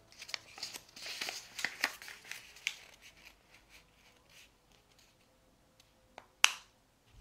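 A sheet of origami paper being folded in half and creased flat by hand: soft rustling and crinkling, then quieter, with one sharp tap near the end.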